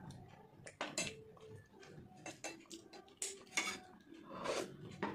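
A spoon clinking and scraping on a steel plate while scooping watery panta bhat, a string of short clinks. Near the end comes a longer slurp as the rice water is drunk from a dish.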